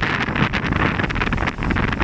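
Wind buffeting the microphone hard over open water: a loud, dense, gusty rushing.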